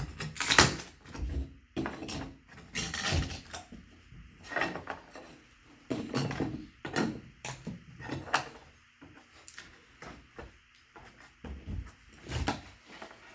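Baseboard trim being pried off the wall with a crowbar: irregular cracks, knocks and scraping as the trim pulls away from the drywall.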